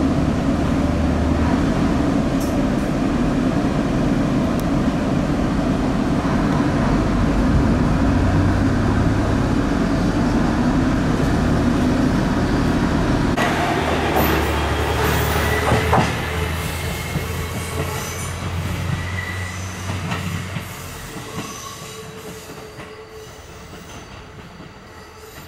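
KiHa E130 diesel railcar running, heard first as a loud steady engine hum inside the car. After a sudden change about halfway, it is heard from outside as it moves off, rattling and squeaking at first, then fading away with a few thin steady tones near the end.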